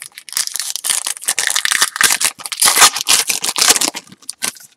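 Shiny foil wrapper of a baseball card pack being torn open and crinkled by hand: a dense, loud run of crackles that thins out near the end.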